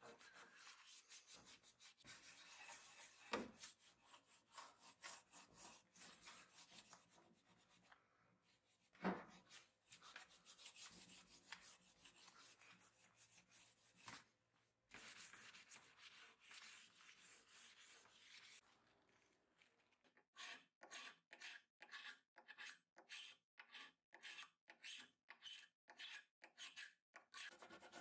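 Cloth rag rubbed back and forth by gloved hands over the stained wooden rails of an antique table frame, with two light knocks about three and nine seconds in. In the last third the strokes settle into an even rhythm of about two to three a second.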